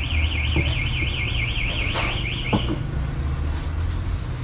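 Car alarm sounding a rapid high warble that sweeps up and down about six times a second, stopping a little under three seconds in, over a steady low rumble.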